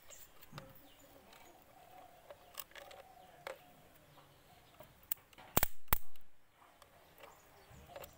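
Swaraj 744 tractor starter motor being bench-tested off a battery. About five seconds in, three sharp snaps come in quick succession, the middle one the loudest, as a metal lead is touched to its terminals. The motor does not spin.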